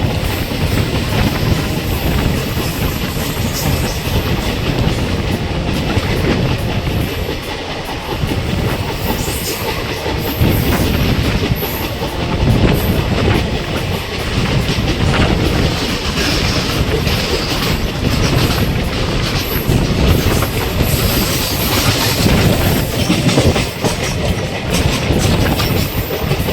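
Passenger train of ICF coaches running at speed: a steady rumble of wheels on rails, with rapid, uneven clickety-clack over rail joints throughout.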